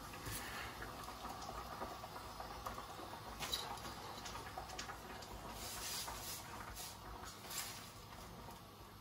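Faint crinkling and rustling of cling film (plastic wrap) under a pastry-wrapped log, with scattered light scratchy ticks.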